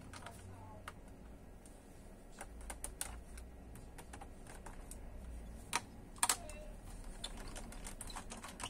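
Irregular light clicks and taps of hands working on a laptop's plastic case and parts, with a few sharper clicks about six seconds in.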